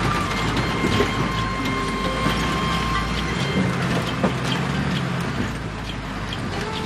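Running noise of a vehicle heard from inside the cabin: a steady low engine and road rumble with scattered knocks and rattles. A steady high tone holds through the first three seconds.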